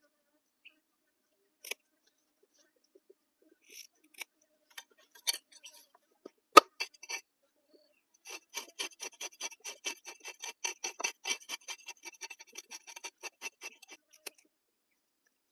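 Knife cutting food: scattered light clicks and one sharp knock, then a rapid, even run of cutting strokes, about five a second, lasting roughly six seconds.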